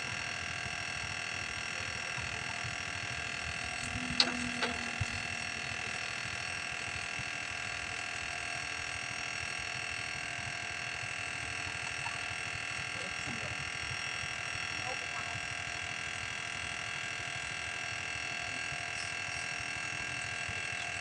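A steady hum made of several fixed tones, even in level throughout, with one sharp click about four seconds in.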